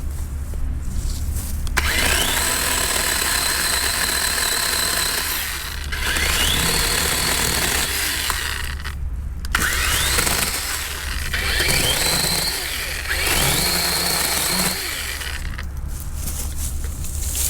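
DeWalt 20V cordless chainsaw cutting wood in about five runs, its electric motor whining up in pitch each time the trigger is pulled, then running steady through the cut before letting off.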